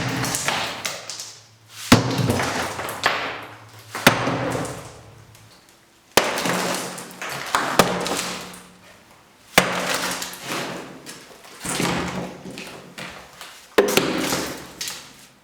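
Heavy hammer blows breaking up a damaged concrete drain board, about one every two seconds, each followed by a clatter of crumbling concrete and falling pieces.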